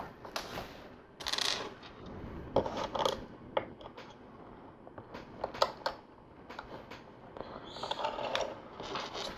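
Small plastic LEGO pieces clicking and clattering as they are picked from a pile and pressed together, in scattered sharp clicks with a few short rustles.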